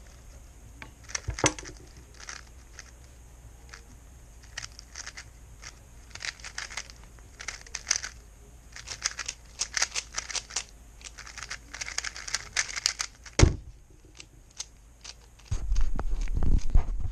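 Plastic speedcube being turned rapidly, a fast rattle of clicking turns in bursts with short pauses between. About 13 seconds in comes a single loud knock, and near the end a louder low rumbling and handling noise that cuts off abruptly.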